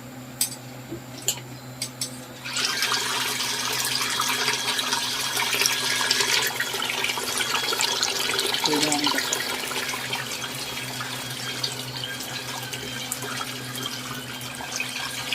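A few clicks, then about two and a half seconds in a small portable turbine washing machine starts churning the water in a bucket: a steady swirling, splashing rush with a thin steady whine in it. It is strongest for the first several seconds and then eases slightly.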